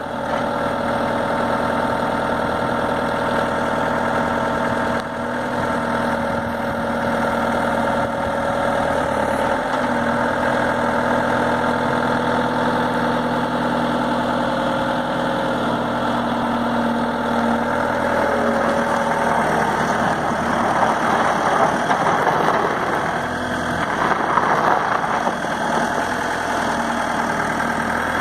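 Diesel engine of a 2006 Bobcat S250 skid steer loader running steadily at idle, growing rougher and a little louder for a few seconds about two-thirds of the way through.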